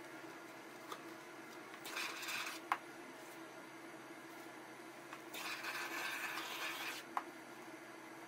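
Gloved hands rubbing and pressing a waterproofing membrane sheet down into a corner: two rubbing passes, the second longer, each ending in a sharp tap. A steady low hum runs underneath.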